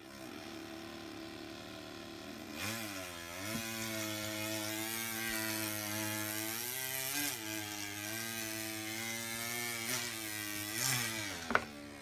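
A person imitating a chainsaw with their voice: a steady buzzing drone that sweeps up in pitch several times, like an engine revving. A sharp tap comes near the end.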